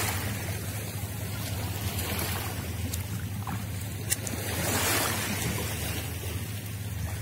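Small sea waves washing onto a shallow beach, with wind rumbling on the microphone; the wash swells at the start and again about five seconds in. A single sharp click about four seconds in.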